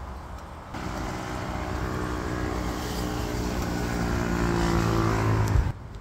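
Motor traffic on a multi-lane expressway: a vehicle's engine drones with a steady hum and grows louder as it approaches, then cuts off suddenly near the end.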